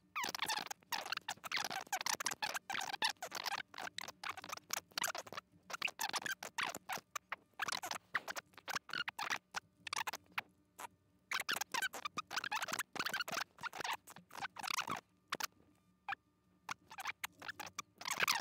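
Computer keyboard typing: rapid, irregular runs of key clicks with short pauses between bursts, busiest in the first few seconds and again about halfway through.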